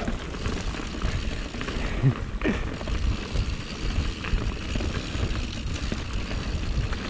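Canyon Spectral mountain bike riding fast down a dirt singletrack, heard from a bike-mounted action camera: steady tyre and trail rumble with wind on the microphone. A short pitched sound cuts through about two seconds in.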